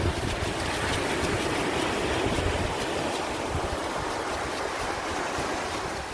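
Rough, storm-driven sea surf breaking and washing up the beach, swelling then easing near the end, with wind rumbling on the microphone.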